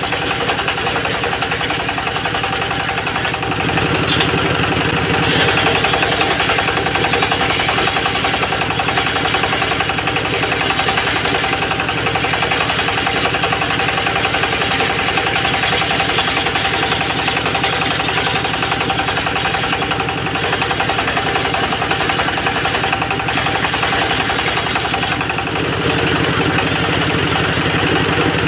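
Engine-driven homemade circular sawmill running and sawing teak, a steady high whine over the engine's fast, even pulsing. It grows a little louder about five seconds in and again near the end.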